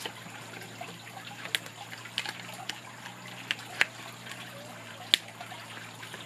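Stiff glossy pinwheel sheets being bent and pinned together by hand: a light rustle broken by several sharp crackling clicks, the loudest about five seconds in.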